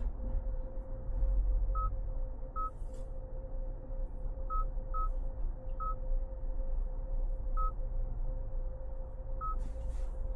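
2025 Hyundai Santa Fe on the move: a steady low road rumble with a steady hum above it, and seven short, identical electronic beeps at uneven intervals.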